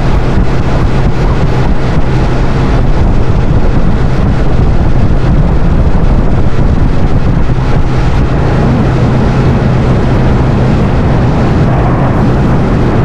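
Small center-console boat running on the water with its Yamaha outboard: wind buffets the microphone over the outboard's steady drone and the rush of the hull through the water.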